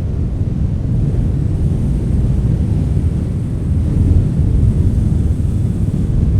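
Strong wind blowing, a loud, deep rumble that rises and falls in gusts and swells a little about four seconds in.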